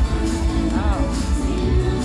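Upbeat parade music with a pulsing bass beat, played through a parade float's loudspeakers.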